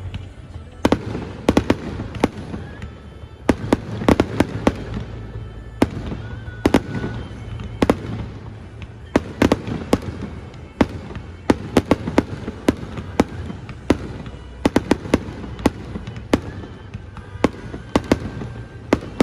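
Fireworks display: aerial shells going off in an irregular run of sharp bangs, often several in quick succession, several a second at the busiest moments.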